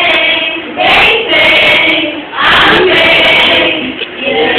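A mixed group of teenage students singing loudly together in phrases, with brief pauses for breath about a second in, a little past halfway, and near the end.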